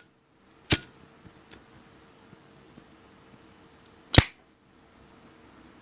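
Sharp metallic clicks of a Zippo Retro Flame lighter being handled: one just under a second in, a few light ticks after it, and a louder click about four seconds in.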